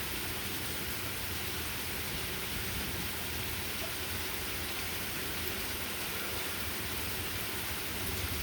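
Rain falling steadily, an even hiss with no thunder claps.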